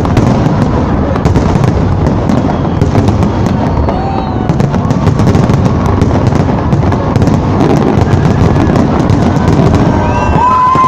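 A fireworks display: a dense, continuous barrage of bangs and crackling shells. Near the end a high whistle comes in, holds and bends down.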